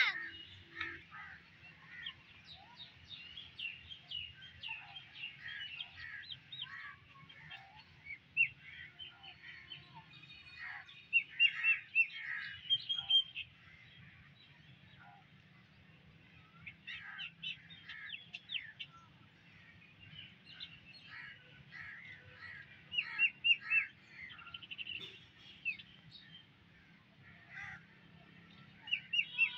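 Birds chirping: many short, high chirps coming in bunches, busiest in a few clusters, over a steady low hum.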